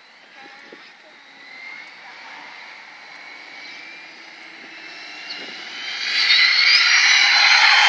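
Electric 1/8-scale RC monster truck on an 11.1 V LiPo making a full-speed run: a high-pitched motor and gear whine grows louder as the truck approaches and becomes loud from about six seconds in as it comes close.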